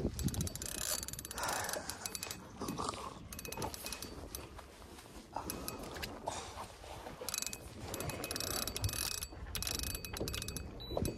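Spinning reel ratcheting and clicking in runs as line is worked under the strain of a hooked, heavy jack crevalle, with wind and water noise underneath.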